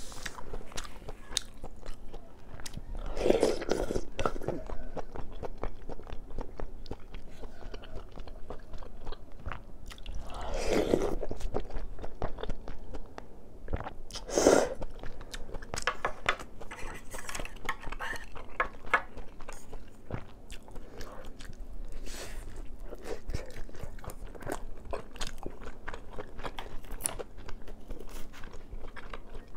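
Close-miked eating sounds: wet chewing and mouth clicks throughout, with three louder slurps of noodles and broth from a soup spoon, the loudest about halfway through.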